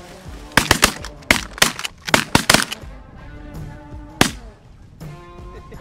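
A rapid volley of shotgun blasts from several hunters firing together, about a dozen shots in two seconds, then one last shot a little after four seconds in.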